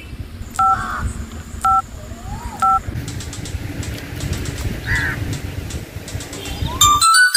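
Smartphone keypad dialing tones: three short two-note beeps about a second apart as a number is keyed in.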